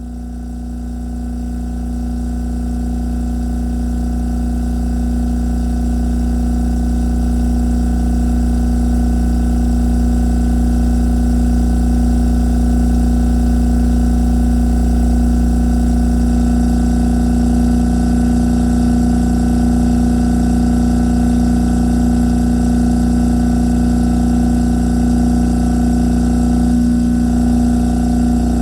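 A refrigerator's hum, processed through effects into a dense, steady harsh-noise drone. It fades up over the first few seconds and then holds at full loudness, with a deep low hum and a strong steady tone above it.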